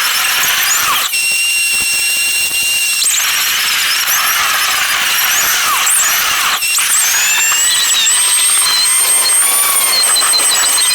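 Driving sound from a Dodge Charger Scat Pack played back many times faster than real time, so it comes out as high-pitched squealing and whining tones that slide about and change abruptly every few seconds.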